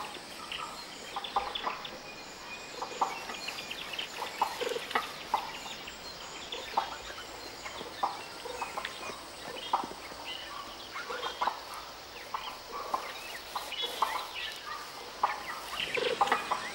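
Sifakas giving their ground-predator alarm call: a rapid, uneven series of short, sharp calls, warning the group of a predator on the forest floor.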